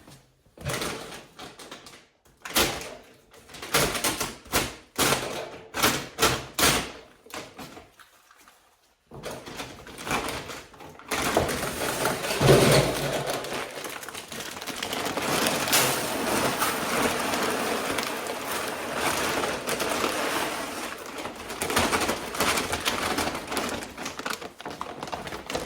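Goat feed being measured out by hand: a string of sharp knocks and clatters of containers and scoops, then, from about eleven seconds in, a long steady rush of dry pellets and grain being poured.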